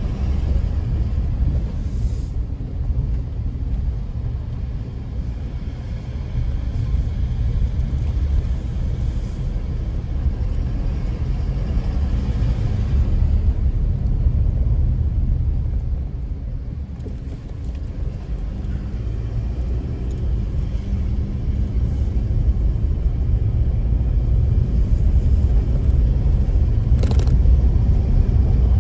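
A car being driven, a steady low rumble of engine and road noise that eases off briefly about halfway and grows louder near the end, with one sharp click shortly before the end.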